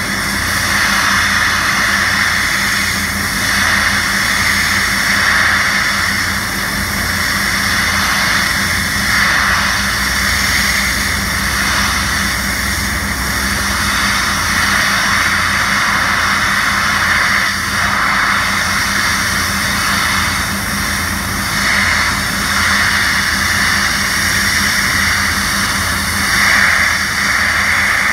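High-pressure water jet from a hydroblasting lance striking concrete pavement: a loud, steady hissing rush with a steady low hum underneath.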